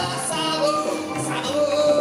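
A man singing a dangdut song live into a handheld microphone over band accompaniment, holding a long note near the end.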